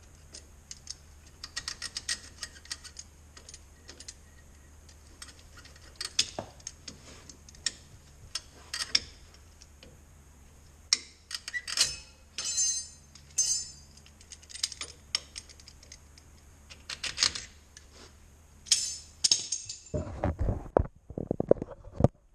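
Sharp metallic clicks and scrapes as locking pliers grip and work the pad-retaining pins out of a 4Runner's front brake caliper, with a quick run of heavier, deeper knocks near the end.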